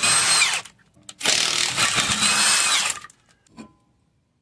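Impact wrench running on a car's 21 mm wheel lug nuts in two bursts, the second about two seconds long, with a whine that drops in pitch as each burst winds down.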